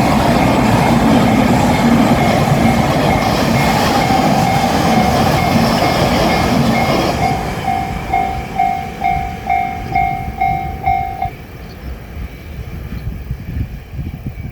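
JR Shikoku 8000 series limited express electric train passing over a level crossing, with the crossing's electronic warning bell ringing a fast, repeating two-tone ding. The train's noise dies away about seven seconds in, leaving the bell alone. The bell stops about eleven seconds in, the signal that the crossing is clear.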